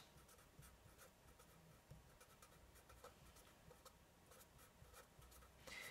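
Faint scratching of a marker pen writing on paper in short, irregular strokes.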